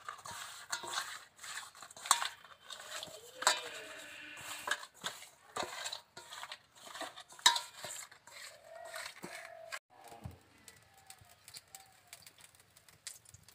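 Pieces of rohu fish being mixed by hand in a stainless steel bowl, with salt and spice rubbed in: irregular clicks, knocks and scrapes of fish and fingers against the metal.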